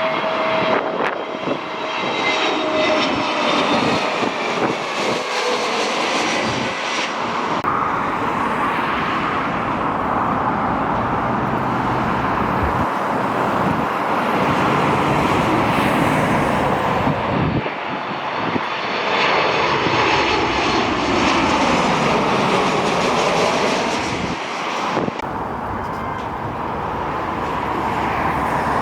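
Jet airliner's engines running loud and steady as the aircraft passes, with a thin high whine that falls slightly in the first few seconds and a sweeping, phasing rush later as the noise moves past.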